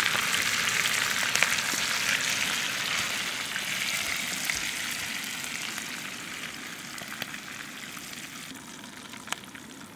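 Deer tenderloin sizzling in butter in a small frying pan on a backpacking canister stove. The sizzle grows gradually quieter, with a few light clicks of utensils against the pan.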